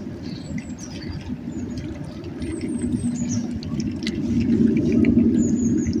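A low engine-like rumble that grows louder about four to five seconds in, with short, thin, high bird chirps sliding down in pitch several times over it.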